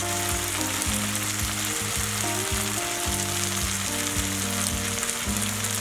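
Pepper chicken masala sizzling steadily in a pan over high heat on the stove.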